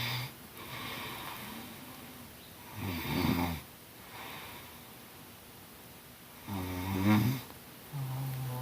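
Snoring: two loud snores about three and seven seconds in, with softer snores and breaths between them, repeating every few seconds.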